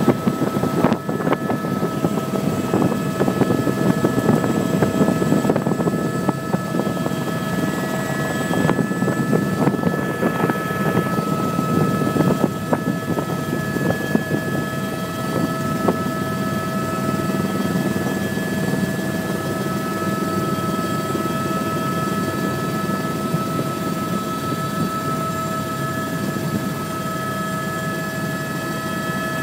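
Helicopter running: a dense rotor rumble with several steady high whining tones over it. The rumble is choppy during the first half and evens out later.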